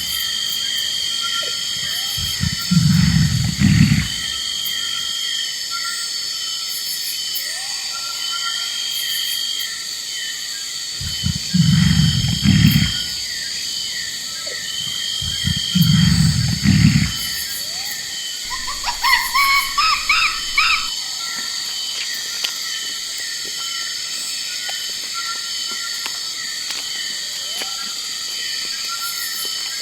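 A large animal's deep calls, in three groups of two, each group about a second and a half long, over a steady high chorus. A quick series of short, high, rising calls comes about two-thirds of the way through.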